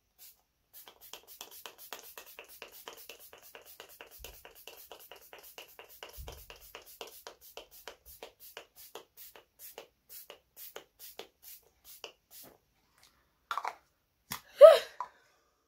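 Maybelline Lasting Fix setting spray being pumped in quick repeated spritzes, about three to four short hisses a second, for around eleven seconds. A brief vocal sound follows near the end.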